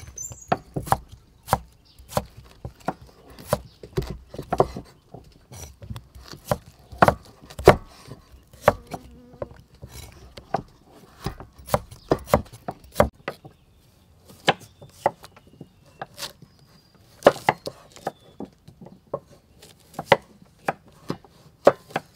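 Cleaver chopping a peeled potato into wedges on a thick wooden chopping board: sharp, irregular knocks of the blade against the wood, about one or two a second.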